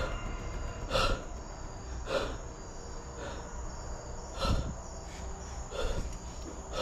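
Crickets chirring steadily in a high, unbroken tone, with soft, evenly spaced short sounds a little more than once a second.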